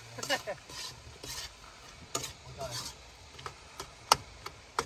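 A spatula stirring and scraping food in a frying pan on a portable gas stove, with irregular scrapes and clacks against the pan. A sharp clack about four seconds in is the loudest.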